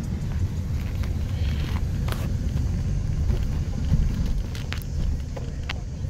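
Low, steady rumble of a car's engine and tyre noise heard from inside the cabin as it drives slowly, with a few short clicks.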